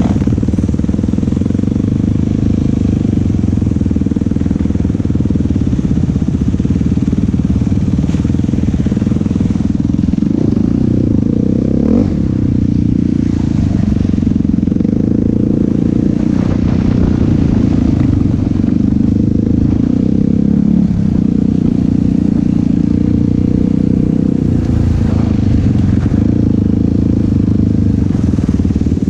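Yamaha YFZ450 quad's single-cylinder four-stroke engine running loud and steady, its pitch shifting a little now and then with the throttle.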